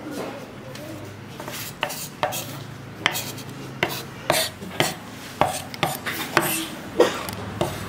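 Cleaver chopping on a wooden cutting board: a string of sharp, uneven knocks, roughly two a second, with the blade striking the board.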